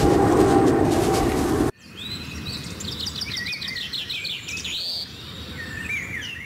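Loud wind rumble on the microphone for about the first second and a half, then it cuts off abruptly. Birds singing follow: quick rising and falling chirps and short rapid trills, repeated.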